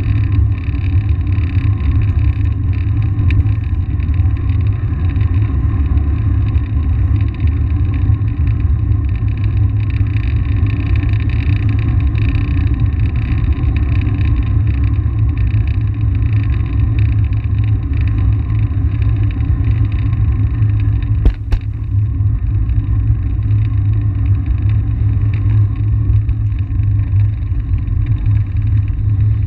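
Steady low wind buffeting on the microphone of an action camera carried by a cyclist riding along a paved path, with one sharp click about 21 seconds in.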